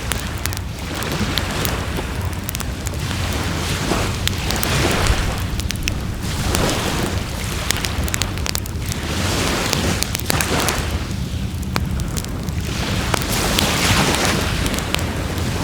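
Wood fire crackling and popping in a fire pan, over a steady low rumble and a rushing hiss that swells and fades every two seconds or so.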